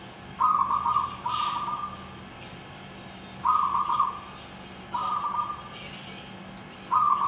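Zebra doves (perkutut) cooing back and forth: five short coos about one to two seconds apart.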